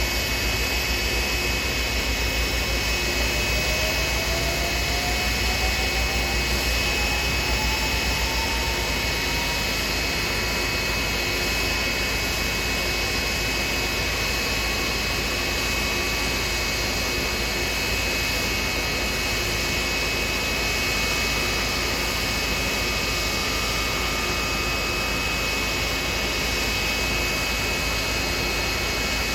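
Jet aircraft engines running steadily, a loud, constant rush with a high whine, and a second tone that rises slowly over the first ten seconds.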